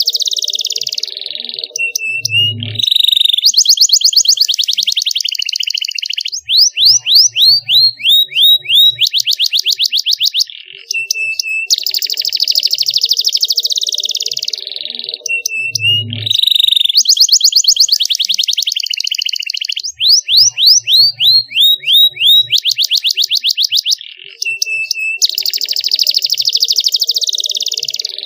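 Domestic canary singing a long, loud song of very fast rolling trills and runs of down-swept whistled notes, broken by short pauses. The same song sequence comes round twice, as in a looped training recording.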